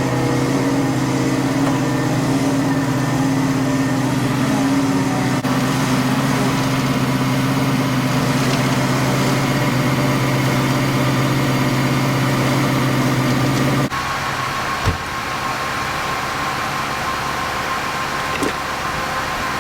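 Ford Mustang's 302 V8 idling steadily. About fourteen seconds in, the engine sound cuts off abruptly, leaving a steady hiss with a faint high hum and a couple of small clicks.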